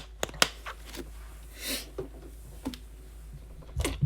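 Scattered light clicks and taps, with a brief rustle about halfway through, over a low steady hum.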